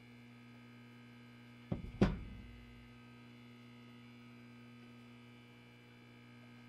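A steady low hum, broken about two seconds in by two heavy thumps a third of a second apart; the second is louder and rings on briefly.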